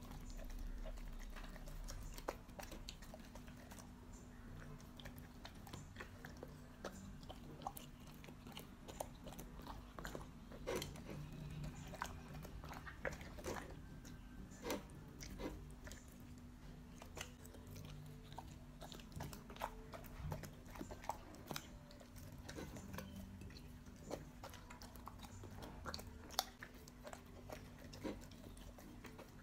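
A large mastiff-type dog eating vegetables and tomato from a plate: irregular wet chewing, smacking and licking sounds with occasional crunches, over a steady low hum.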